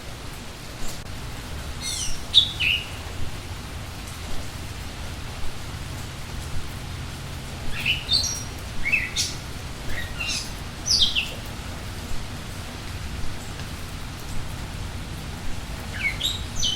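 Steady rain falling, with a songbird singing short phrases of quick, falling whistled notes: a couple of seconds in, a longer run in the middle, and again near the end.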